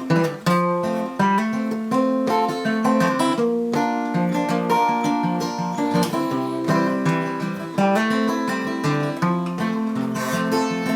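Acoustic guitar playing an instrumental break in a country song, strumming chords with single picked notes between them, with no singing.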